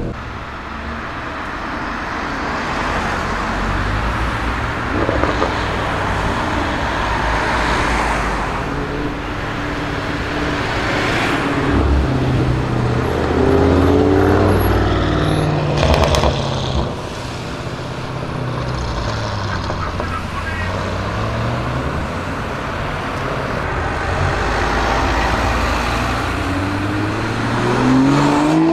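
Audi RS6 Avant C7's twin-turbo V8 running through a Milltek exhaust, its note rising and falling as the car drives, then climbing steadily in pitch near the end as it accelerates.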